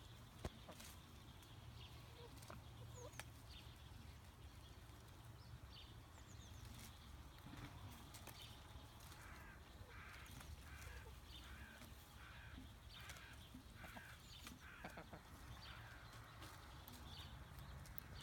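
Faint outdoor sound of hens foraging at a lettuce plant, with small scattered pecking clicks. A run of short repeated bird calls comes from about nine to fifteen seconds in.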